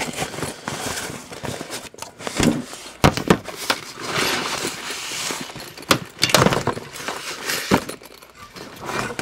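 Rustling of a carry bag and packaging, with several sharp knocks and clunks, as a new 12 V air compressor and its cables are handled and lifted out.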